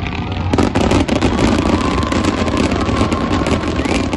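Fireworks going off, a dense crackle of rapid pops that sets in sharply about half a second in, with thin whistling tones over it.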